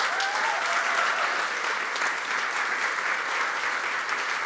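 Large audience applauding, a steady, even clapping.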